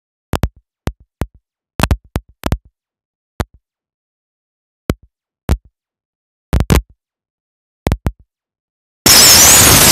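Sharp knocks and bangs at irregular intervals, some in quick pairs, with dead silence between them, then a sudden loud hiss of static about nine seconds in.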